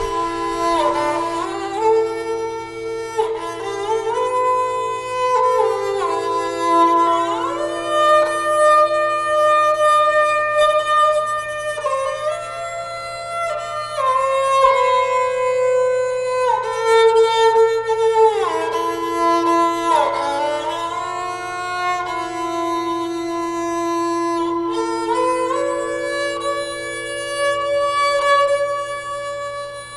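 Slow instrumental background music: long held notes that slide smoothly from one pitch to the next.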